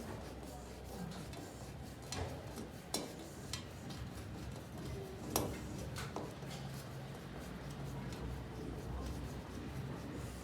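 Scattered sharp metallic clicks and knocks from handling and fixing a split air conditioner's metal mounting bracket, over a low steady hum. The strongest knock comes about halfway through.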